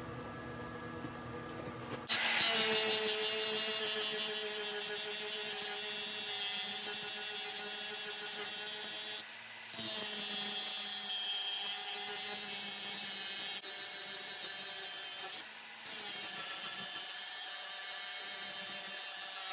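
A power tool running on the axe: a loud, steady, harsh high hiss that starts suddenly about two seconds in and breaks off twice for about half a second.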